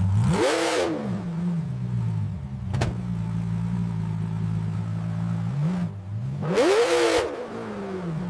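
Ferrari V12 engine running steadily and revved in two quick blips, one about half a second in and another near the end, each rising and falling in pitch. There is a single sharp click about three seconds in.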